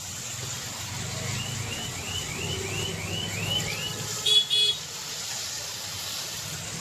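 Street traffic: a run of about eight quick rising-and-falling electronic chirps, then two short horn toots a little after four seconds in, over a low steady rumble.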